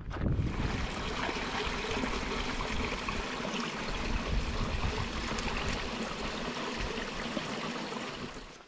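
A small hill stream trickling over granite rocks: a steady rush of water that fades away near the end.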